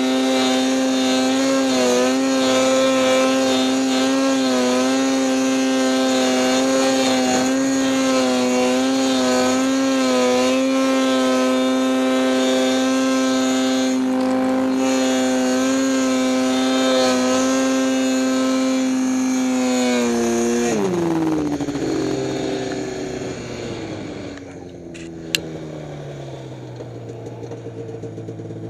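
Snowmobile engine running at high, steady revs with small wavers as the throttle is worked through deep powder. About twenty seconds in, the revs fall away in a quick downward glide and the engine runs on lower and quieter, with one sharp click near the end.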